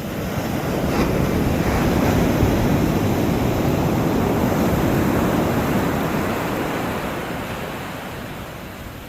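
Ocean surf: a wave washing in, its rushing noise swelling over the first couple of seconds and fading toward the end, with wind buffeting the microphone.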